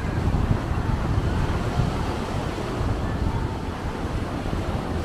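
Wind buffeting the microphone in uneven low rumbles, over a steady rushing hiss.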